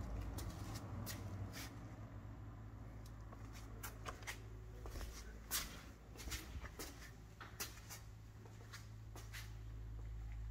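Quiet room tone with a low steady hum, broken by scattered faint clicks and taps at irregular intervals, the clearest a little past the middle.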